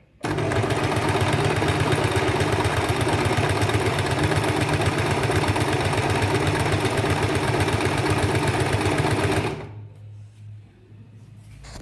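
Usha Stella automatic zigzag sewing machine stitching a wide zigzag over a fabric edge as an overlock, running at a steady fast speed with rapid needle strokes. It starts at once and stops abruptly about nine and a half seconds later.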